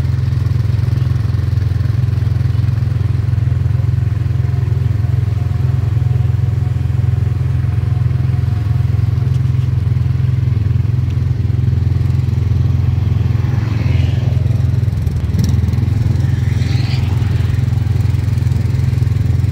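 Small ride car's engine running with a steady low drone as the car travels along its track.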